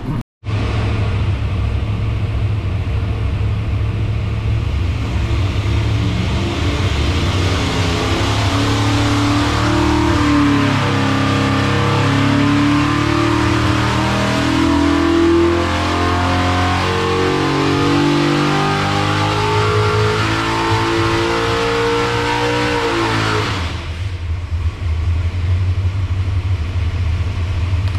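A 522 cubic-inch big-block Chevy V8 on an engine dyno, running hard under load with its pitch climbing gradually through a power pull. About 23 seconds in the throttle closes, and it drops back to a lower idle.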